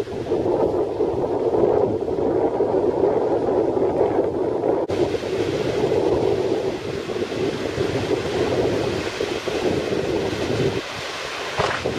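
Strong onshore wind buffeting the microphone, a steady heavy rush, over breaking surf on a shingle beach; a hissier wash of surf comes up about halfway through.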